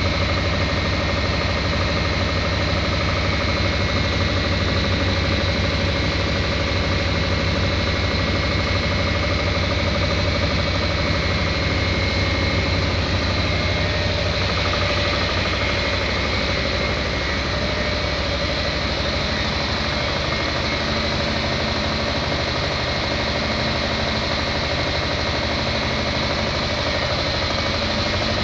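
HCCI test engine running steadily on producer gas from a biomass gasifier, with a rapid, even pulse under a dense mechanical din. Steady whining tones sit above it, and one of the higher whines fades out about halfway through.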